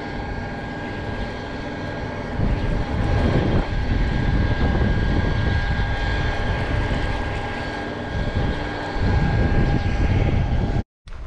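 Steady drone of a distant engine with a high, even whine over it, and wind rumbling on the microphone from about two seconds in; it cuts off abruptly near the end.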